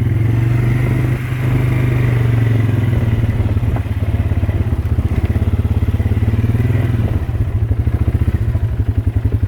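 Motorbike engine running steadily while riding, then settling into a slower, evenly pulsing idle about seven seconds in.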